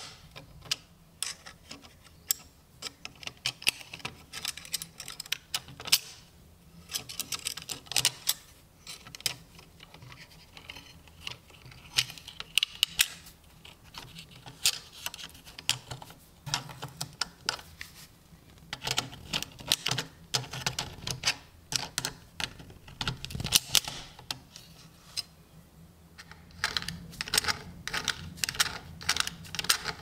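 Small metal parts of an antique padlock's lever mechanism clicking and tapping as they are handled and fitted: irregular light clicks throughout, coming thicker near the end.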